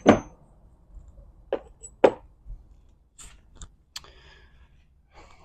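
Metal manual-transmission parts being handled and set down: one loud clank with a brief metallic ring at the start, then several lighter scattered knocks and clicks.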